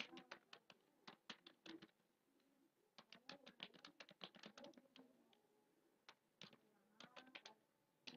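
Computer keyboard keys typed quickly in short bursts, faint clicking with brief pauses between runs of keystrokes.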